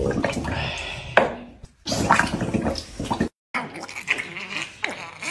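Water sloshing and splashing in a plastic tub as a small dog is bathed, with sharp scrubbing strokes. It breaks off abruptly about three seconds in, and quieter, scattered sounds follow.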